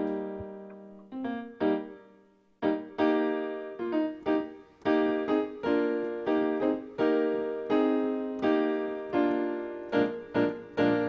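Piano or keyboard playing a slow run of chords, each struck and left to fade, with a short pause about two seconds in, then picking up a steady pace.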